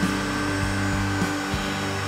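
Tube bender's motor running steadily as it bends a length of tubing, with background music over it.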